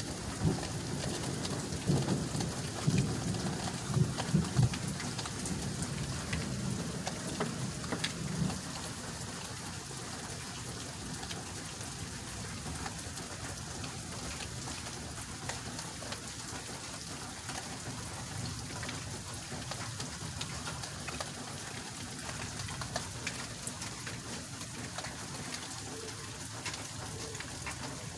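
Steady rain falling in a thunderstorm, an even hiss of drops. In the first eight seconds or so there are several louder low thumps and some rumbling.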